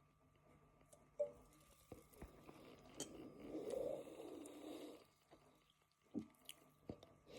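Quiet mouth and throat sounds close to the microphone from someone bloated with carbonated drink: a brief throaty sound about a second in, a breathy exhale through the middle, and a few small wet clicks near the end.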